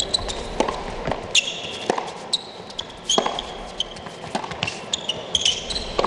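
Tennis rally: racket strings striking the ball and the ball bouncing on the court, in an irregular beat of sharp knocks a few tenths of a second to about a second apart, with short high squeaks from players' shoes on the court in between.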